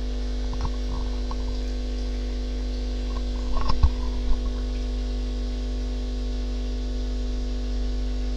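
Steady electrical hum, a low drone with a higher steady tone over it, with a brief cluster of knocks and clicks about three and a half seconds in.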